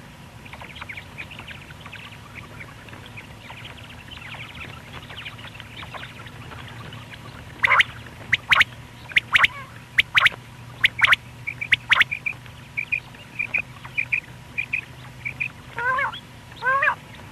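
Common quail calling: faint chirping notes at first, then, about halfway through, a run of loud, sharp calls, followed by short repeated notes and, near the end, lower calls that rise and fall, over a low steady hum.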